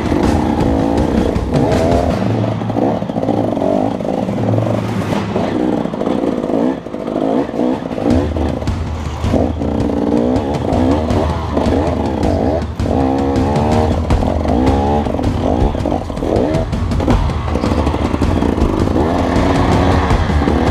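KTM dirt bike engine being ridden hard, the revs rising and falling again and again, with background music playing underneath.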